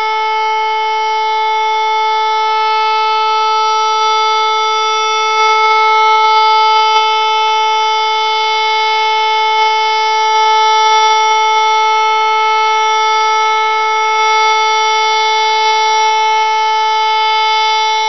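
Hörmann HLS 273 compressed-air warning siren sounding one steady, unwavering tone with rich overtones: the continuous all-clear (Entwarnung) signal. It sounds somewhat hoarse.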